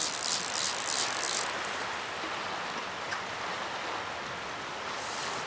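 Fly reel's click-and-pawl ratchet clicking in quick repeated bursts as a hooked fish is played, stopping about a second and a half in. Under it, the steady rush of river rapids.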